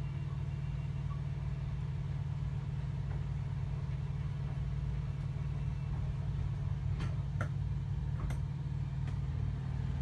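Steady low mechanical hum, engine-like. Three short clicks come about seven to eight seconds in.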